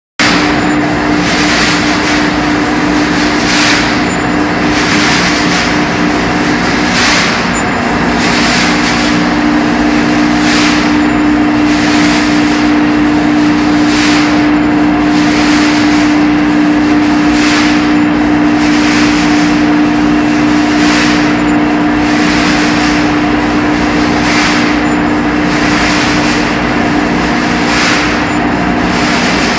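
Machinery in a tanker's cargo pump room running continuously: a loud, steady hum with a strong low tone, and a regular whooshing pulse about once a second.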